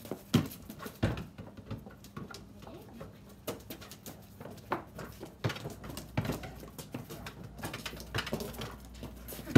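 Irregular knocks and scuffs of a basketball and a large dog's paws on paving slabs as the dog chases and noses the ball.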